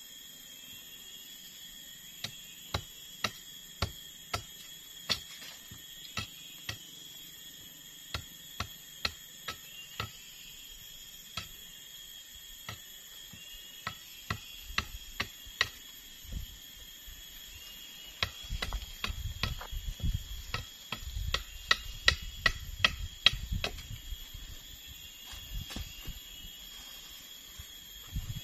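A machete striking a wooden pole in a run of sharp knocks, about two a second, then faster blows with heavier low thuds in the second half. Insects buzz steadily in the forest behind.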